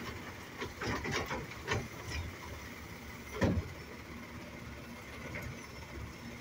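Automated side-loader garbage truck working its hydraulic grabber arm to lower an emptied cart, with a run of clattering knocks early on and a single heavier thud about three and a half seconds in, over the truck's engine running steadily.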